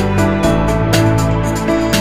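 Background music: soft, steady instrumental with held chords, a bass line and a light ticking beat.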